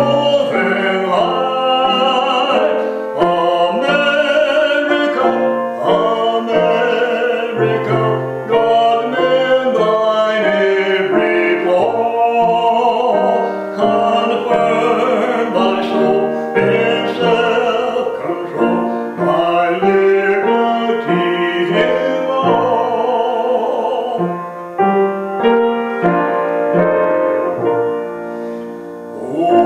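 A man singing a hymn with piano accompaniment, with a short lull near the end before the next line.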